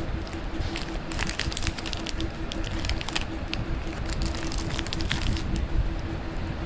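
Candy and chocolate wrappers crinkling and crackling as packets are handled, in quick irregular bursts of clicks, over a steady low rumble.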